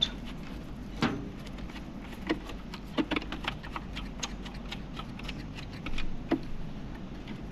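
Scattered small metallic clicks and taps from a screwdriver working screws out of an oven door, with a few sharper knocks.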